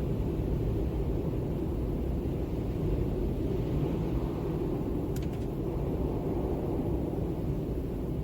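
Steady, low, rumbling wind, with most of its weight in the bass. A faint tick or two about five seconds in.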